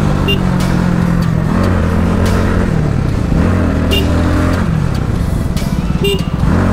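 Bajaj Pulsar NS200 single-cylinder motorcycle engine running in traffic, its pitch rising and falling as the throttle opens and eases off. Three short horn beeps come about a second in, around the middle, and near the end.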